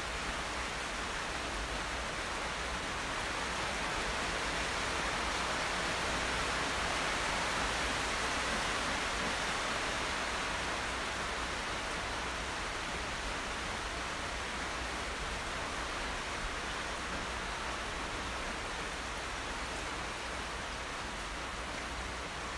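Steady rushing noise with no distinct events, swelling a little in the middle and then easing.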